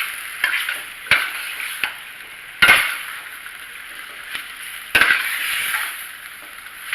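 Pork and vegetable stir-fry sizzling in a hot pan as cornstarch is stirred in, with four sharp knocks of the stirring utensil against the pan. The loudest knock comes about two and a half seconds in.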